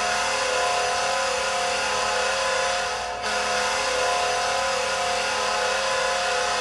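NHL arena goal horn blowing a steady multi-tone chord in long blasts, with a brief break about three seconds in before the next blast sounds.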